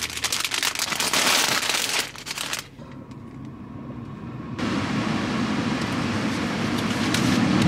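A plastic sleeve around a bouquet of roses crinkling as it is handled. After a sudden cut, a quieter stretch, then a steady rushing noise from a little before halfway.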